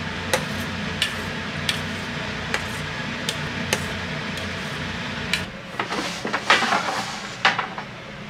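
A metal utensil stirring pasta in a pot of boiling water on a gas stove, clinking lightly against the steel pot about once or twice a second over a steady bubbling hiss. About five seconds in the hiss stops and crockery and a wooden tray knock and clatter for a couple of seconds.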